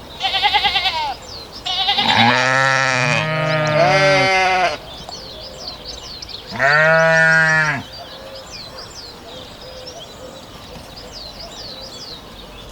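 Sheep bleating: a high, quavering bleat at the start, then several deeper bleats overlapping from about two to five seconds in, and one more bleat around seven seconds. Birds chirp faintly in the background.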